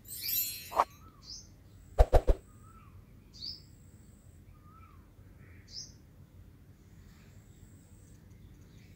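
Sharp mouse-click sound effects from a like-and-subscribe animation: one just under a second in, then three quick clicks about two seconds in. Behind them, small birds chirp faintly now and then in short, falling calls.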